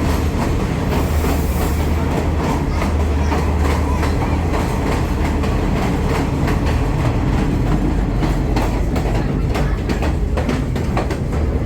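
Passenger train running, heard from inside a carriage: a steady low rumble with the wheels clicking over the rail joints, the clicks coming more often in the second half.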